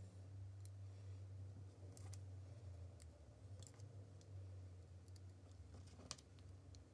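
Near silence: a low steady hum with a few faint, scattered clicks from a small circuit board and plastic female pin headers being handled.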